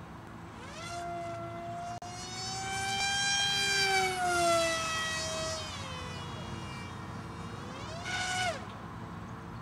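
Electric motor and pusher propeller of a FunJet radio-controlled model jet in flight, giving a high-pitched whine. It climbs in pitch as the throttle opens about a second in and is loudest midway, then drops in pitch. It rises briefly once more and cuts off sharply near the end.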